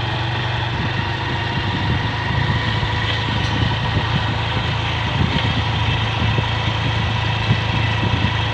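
Motorcycle engine running steadily at an even cruising speed, heard from on the moving bike, a constant low hum with no change in revs.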